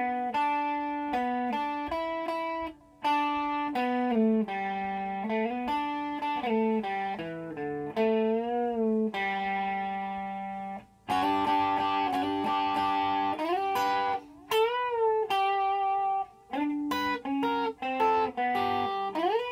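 Solid-body electric guitar playing a lead solo, mostly two notes at a time on the top strings, sliding between positions. Some notes are bent and shaken with vibrato. After a short break about halfway through, the playing turns brighter and louder.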